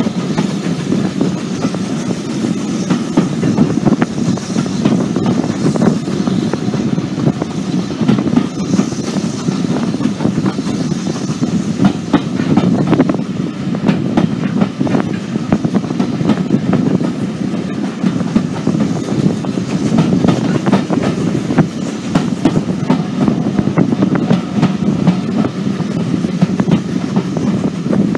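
Steam-hauled passenger train running at speed, heard from a carriage window: a steady rumble of the coaches with wheels clicking over the rail joints.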